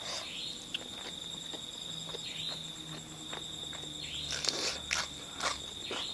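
Insects trilling steadily on one high note, with the wet clicks and smacks of someone chewing food close to the microphone, a few louder smacks about four to five seconds in.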